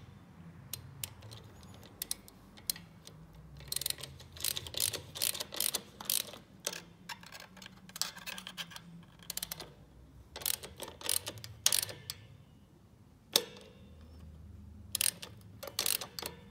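Hand ratchet clicking in short runs as a socket turns a spring adjusting nut in on a Shovelhead clutch pressure plate, setting the plate to height on its stud. Between the runs there are a few single sharp metal clicks.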